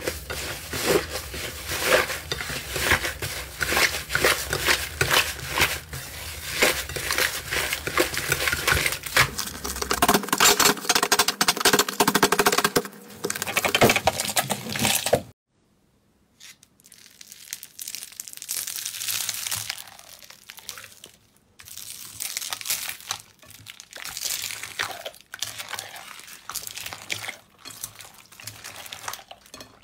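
Hands squeezing, stretching and kneading slime: dense, fast crackling and popping of trapped air. It stops abruptly about halfway through, then resumes as quieter, sparser squishy crackles.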